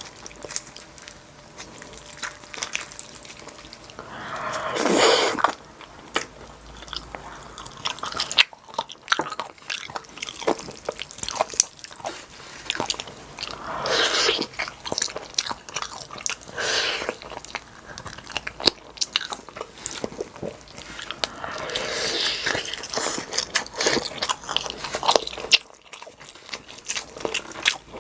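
Close-miked eating of pork back-bone stew and rice: steady chewing and biting with many small mouth clicks, and a few louder, longer swells of sound about five seconds in, near the middle and near the end.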